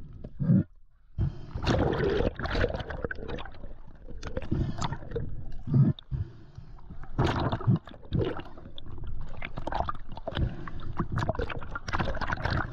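Seawater sloshing, gurgling and splashing around a diver's action camera as it bobs in and out of the water at the surface, with uneven knocks and swells of noise.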